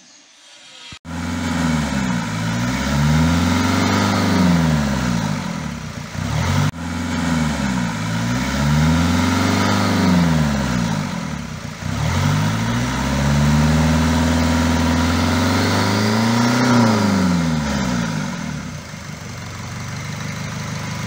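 Nissan Qashqai 2.0 dCi four-cylinder common-rail diesel engine running. It starts abruptly about a second in and breaks off briefly twice, near 7 and 12 seconds, as if spliced. Its pitch sweeps up and down.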